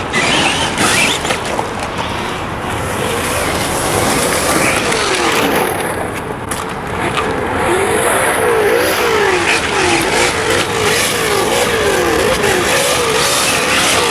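Electric motor whine of radio-controlled 4x4 trucks being driven hard. The pitch rises and falls as the throttle is worked, in quick repeated swings through the second half, over the rush of tyres on gravel.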